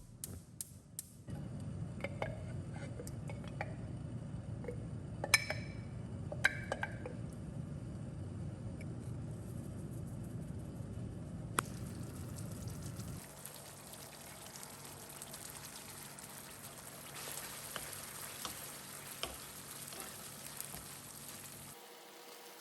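Food frying in a pan, with a steady sizzle and a few sharp clinks of a utensil against the cookware about five and six seconds in; the sizzle drops lower about halfway through.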